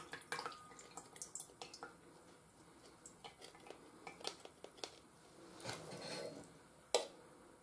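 Faint last drips of corn liquid draining from a tilted can into a stainless steel bowl, with small clicks of the can against the bowl. Around six seconds in the kernels slide out into a metal bowl, and a single sharp knock follows about a second later.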